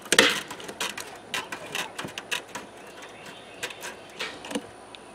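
Aviation snips cutting window screen: an irregular run of short, sharp snipping clicks, with a louder snap just at the start.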